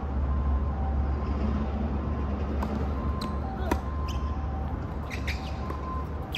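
Tennis ball knocks on an outdoor hard court: a few sharp hits and bounces from ball on court and racket during a serve and the start of a rally, over a steady low rumble.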